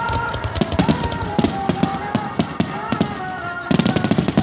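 Fireworks barrage (starmine): many shells launched and bursting in quick succession, a dense run of bangs and crackling, with a heavier cluster of bangs near the end.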